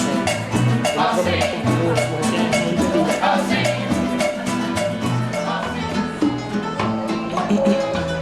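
Salsa-style Cuban dance music with a steady percussion beat.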